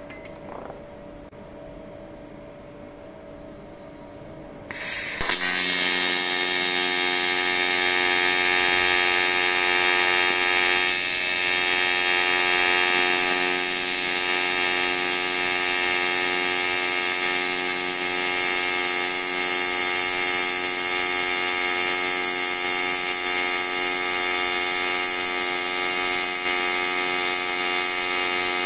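AC TIG welding arc on aluminium: about five seconds in the arc strikes with a short hiss, then settles into a loud, steady buzz that holds without a break.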